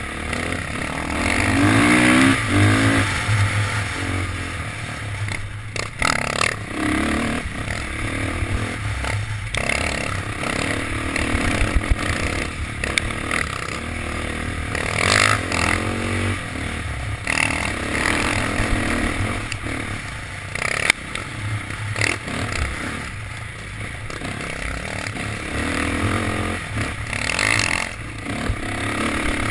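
Dirt bike engine revving up and down as it is ridden along a rough trail, heard from on the bike itself, its pitch climbing a second or two in. Knocks and rattles come through as the bike bounces over bumps.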